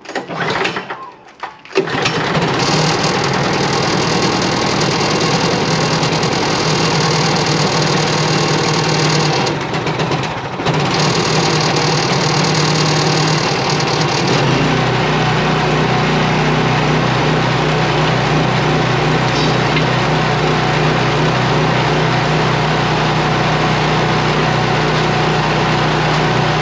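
Brand-new Harbor Freight Predator 305cc single-cylinder engine on a snowblower starting for the first time: it cranks briefly, catches about two seconds in and runs steadily. It dips briefly around ten seconds in, and its running note changes about halfway through.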